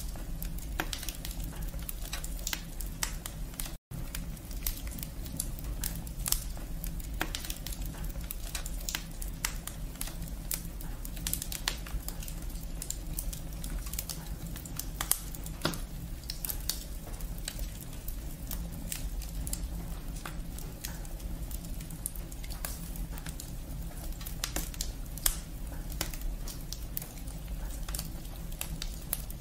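Wood fire burning in an open fireplace: burning firewood crackling in dense, irregular snaps over a steady low rumble, with a few louder pops. The sound drops out for an instant about four seconds in.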